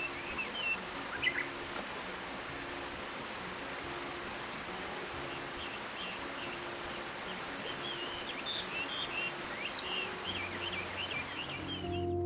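Steady rush of river water, with small birds chirping in many short calls, busiest in the second half.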